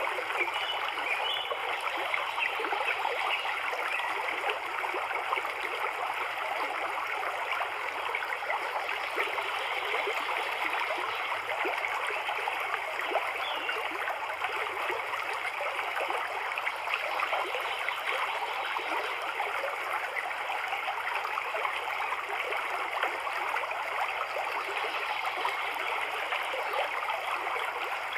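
Steady running water, a continuous stream-like trickle and rush that holds even throughout without breaks.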